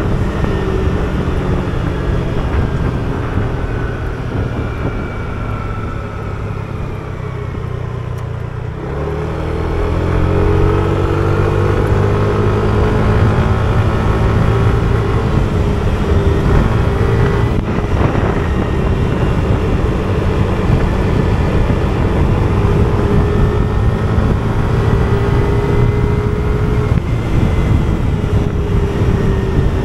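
Yamaha motor scooter engine heard from the rider's seat, its pitch falling as it eases off for the first several seconds, then rising again as it speeds up and settling into a steady cruise.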